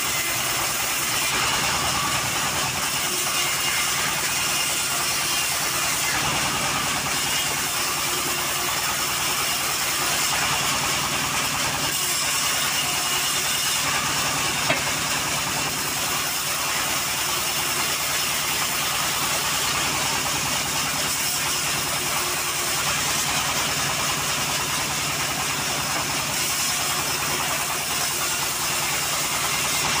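Homemade engine-driven band sawmill running steadily as it rips a teak plank: a continuous machine drone with a low hum and the hiss of the blade in the wood.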